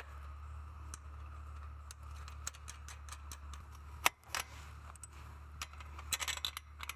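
Metal clinks and rattles of fence hinge hardware being fitted onto a chain link gate's metal frame: scattered sharp clicks, a louder one about four seconds in and a quick run of them near the end.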